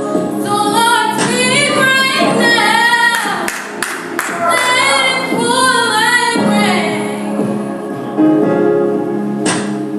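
Teenage girls singing a gospel praise song together, in phrases that rise and fall, with a steady low held note underneath from about six seconds in.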